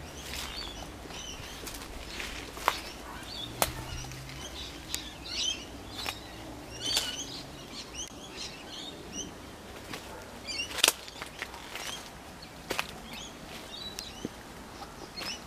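Small birds chirping on and off in the background, with a few sharp clicks scattered through, over a faint low steady hum.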